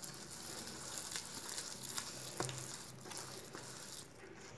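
A hand rubbing and squishing a thick spice paste around a stainless steel bowl: a faint, gritty scraping hiss with a few soft clicks.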